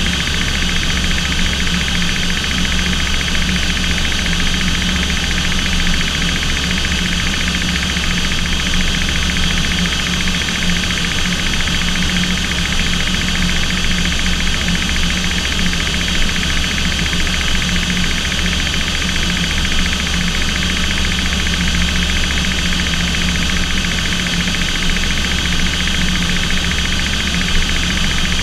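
Aircraft engines running steadily in flight, heard inside the cockpit as a loud, even drone with a low hum and a high whine that hold constant pitch.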